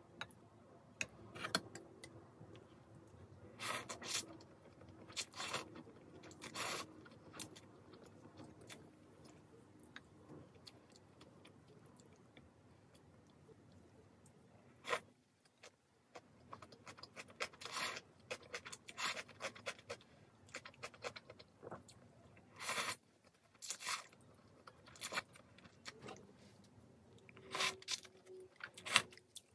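Eating noodle soup: wooden chopsticks and a wooden ladle clicking and scraping against ceramic bowls, with the chewing and slurping of thin wheat noodles in irregular short bursts.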